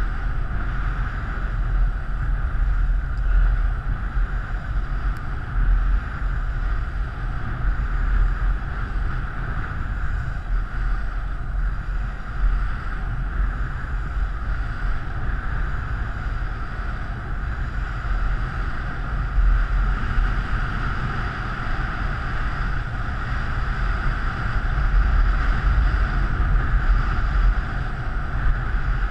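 Wind buffeting the microphone of a camera riding a penny board downhill at speed, over the steady roll of the board's small wheels on asphalt. The noise is steady and rises a little near the end.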